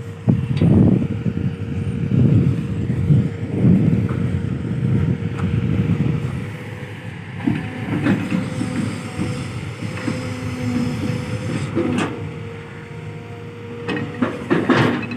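Kobelco SK210-8 Super XM excavator working, its engine and hydraulics surging under load with a steady whine throughout. Several sharp knocks come about halfway through, about four seconds later, and near the end.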